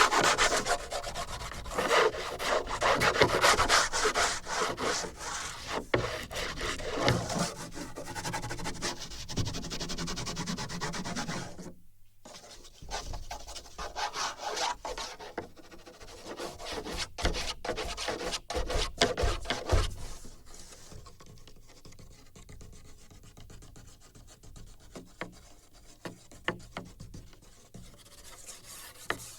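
A drawing tool rubbing and scratching across a wooden board, picked up by sensors fixed to the board: dense back-and-forth strokes for about twelve seconds, a brief break, then sparser strokes and sharp ticks that grow fainter in the last third.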